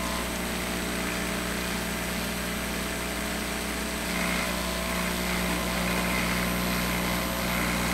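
A 1/3 horsepower three-phase motor running steadily at full speed, about 3450 RPM, fed by a variable frequency drive at 60 hertz: a steady hum.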